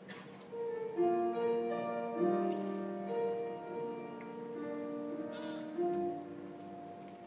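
Live concert music: a piano playing slow, held chords.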